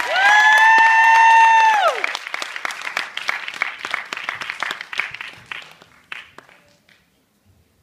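Audience applauding at the end of a dance routine, over the music's last long held note, which falls away about two seconds in. The clapping then thins and dies out near the end.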